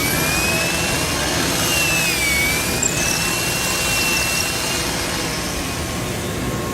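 Loud, steady machine or engine noise, with a high whine that wavers up and down in pitch for the first five seconds or so.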